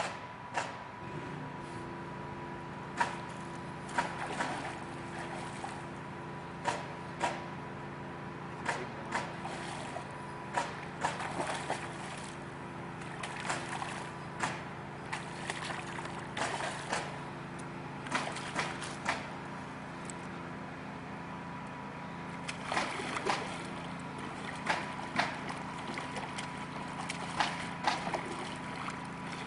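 Stream water trickling and sloshing, with scattered sharp clicks and taps and a steady low hum that comes in about a second in.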